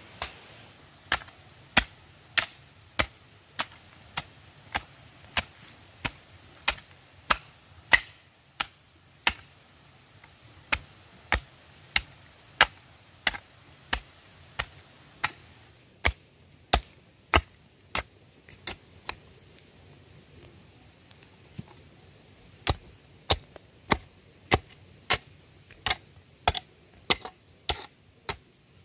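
Steady chopping: sharp blade strokes, about three every two seconds, with a pause of a few seconds about two-thirds through before the strokes resume.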